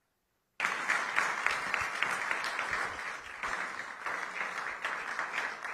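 Audience applauding: many hands clapping, starting abruptly about half a second in and slowly fading toward the end.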